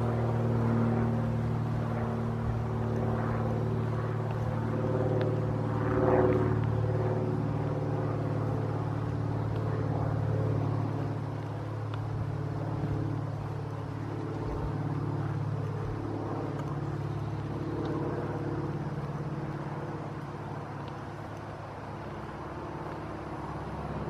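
Steady low hum of a running engine, with a brief swell about six seconds in, easing off a little in the second half.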